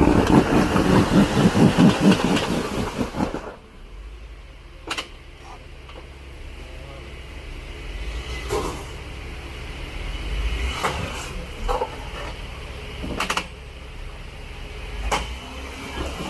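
Off-road vehicle engine running at low revs, with scattered sharp knocks and clunks. It is louder and busier for the first three seconds or so, then settles to a low rumble.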